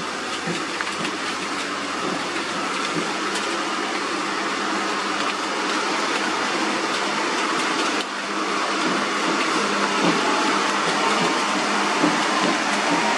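Heavy Hino diesel trucks running as they crawl over a wet, broken road: a steady, dense engine noise that grows a little louder in the second half as a crane truck drives up close.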